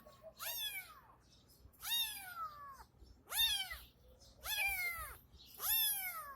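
A cat meowing five times in a row, each a high meow that falls in pitch, about one every second and a half.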